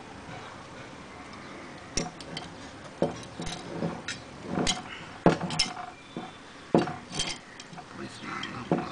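A screwdriver clinking and tapping against a steel bracket and its bolts: irregular sharp metallic clicks and knocks, about ten in all, the loudest a little after five seconds in.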